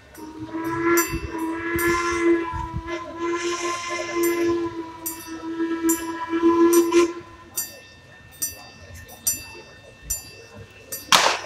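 Steam locomotive whistle blowing one long blast of about seven seconds, with several tones sounding together. Behind it and after it comes the locomotive's exhaust chuffing in evenly spaced strokes as it approaches. A brief loud noise sounds right at the end.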